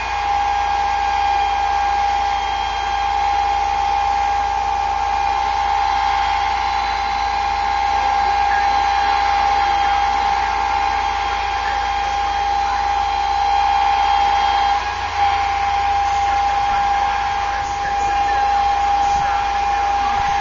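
Roofing truck's hydraulic boom system running, a steady high whine that holds one pitch, with a brief dip about fifteen seconds in.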